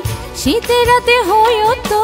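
Music: an instrumental passage of a Bangla song, with a lead melody in quick ornamented turns over drum beats.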